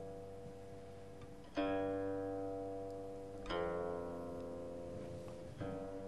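Slow background music on a plucked string instrument: three notes about two seconds apart, each ringing out and fading slowly.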